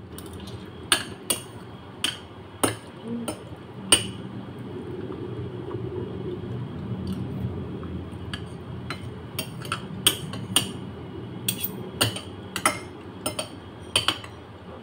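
Metal spoon and fork clinking and scraping against a plate, in irregular sharp taps, with close-up chewing and slurping of pasta noodles between them.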